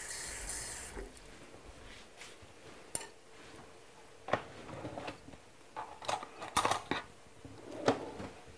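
Water runs briefly from a kitchen tap, then come scattered light clinks and knocks of a spoon against dishes as water is added to cornstarch to make a slurry.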